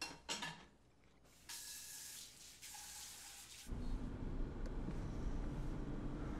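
A couple of short knocks, then a kitchen tap running in two short bursts of splashing water. About three and a half seconds in, it gives way to the steady low rumble of road noise inside a moving car.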